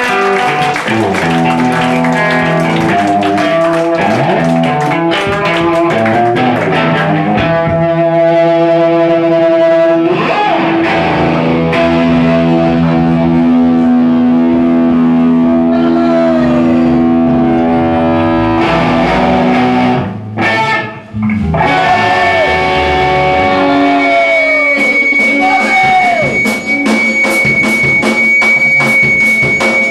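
Rock band playing live, loud distorted electric guitars ringing out long sustained notes. The sound cuts out briefly about twenty seconds in, then a steady high tone is held over the guitars for the last several seconds.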